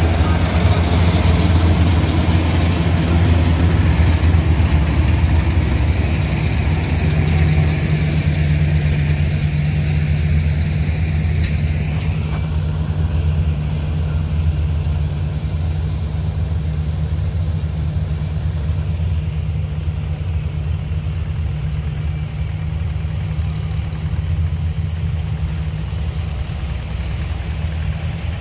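Combine harvester's diesel engine running steadily, a low hum with a wash of higher noise over it that eases off about halfway through.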